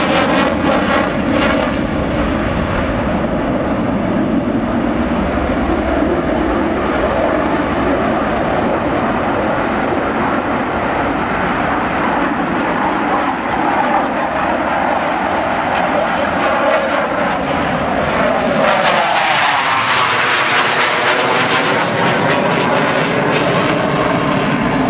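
Airplane engine noise, loud and steady. About three-quarters of the way through the tone sweeps and falls, with more hiss, as the aircraft passes.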